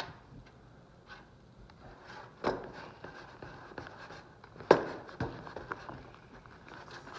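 Handling noises of craft supplies at a table: faint rubbing with a few sharp knocks, the loudest about four and a half seconds in.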